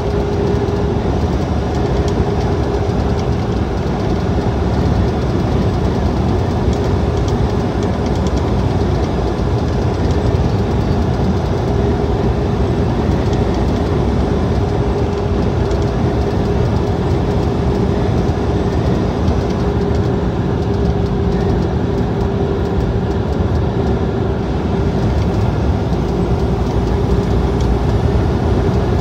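Semi-truck cruising at highway speed, heard from inside the cab: a steady drone of engine and tyre noise with a steady hum over it.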